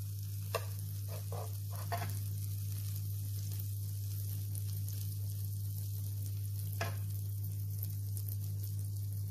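Butter sizzling and bubbling as it melts in a hot frying pan with olive oil, with a few light clicks as a utensil pushes the block around, mostly in the first two seconds and once more near seven seconds. A steady low hum runs underneath.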